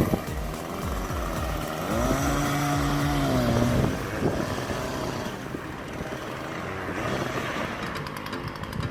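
A small engine revs up once about two seconds in, holds for nearly two seconds and drops back, over a steady outdoor background.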